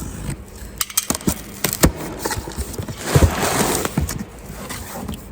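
Irregular knocks and clicks with a stretch of rustling about three seconds in: someone moving about and handling parts and their packaging.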